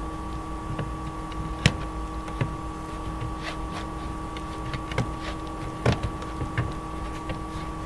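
Scattered scrapes, clicks and knocks of hand tools working on the old garage door weather strip and the stucco beside it, over a steady mechanical hum.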